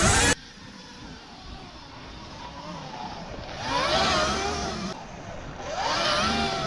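Sur-Ron Light Bee X electric dirt bike being ridden, its motor whine gliding up and down in pitch with the throttle and swelling twice. A louder noise cuts off abruptly just after the start.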